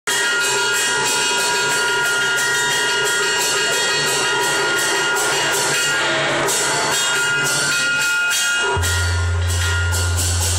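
Chinese opera music played live, led by percussion: a steady run of strokes, a few a second, over sustained ringing tones. A deep steady hum comes in about nine seconds in.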